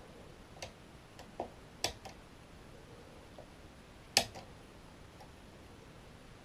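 Irregular metallic clicks of a lever lock pick working the levers inside a Union 2134E five-lever mortice deadlock, about nine in all; the loudest click comes a little after four seconds in.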